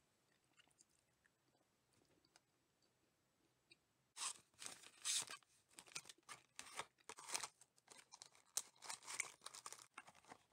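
Faint light taps, then from about four seconds in the foil inner wrapper of a chocolate box crinkling and crackling irregularly as hands fold and press it.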